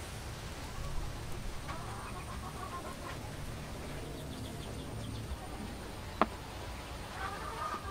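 Chickens clucking in two short bouts, about two seconds in and again near the end, with one sharp click about six seconds in.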